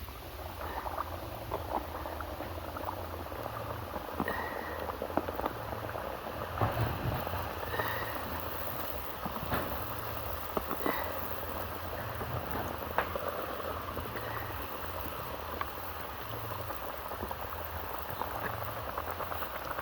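Mandazi dough deep-frying in hot oil, the oil sizzling steadily with a dense, irregular crackle.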